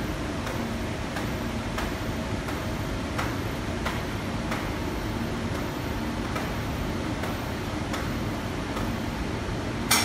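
Automatic pallet stretch wrapper running as its turntable turns the pallet: a steady mechanical hum with a regular click about one and a half times a second, and one louder sharp clack at the end.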